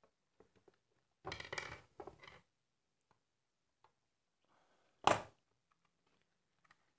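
Screwdriver prying at the seam of a plastic hand mixer housing: a short spell of scraping and creaking plastic about a second in, then one sharp snap about five seconds in as a snap-fit clip of the shell gives way.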